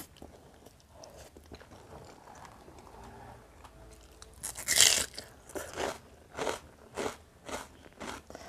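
Quiet mouth sounds, then about halfway through a loud crisp bite into a slice of raw bitter melon, followed by crunchy chewing at about two chews a second.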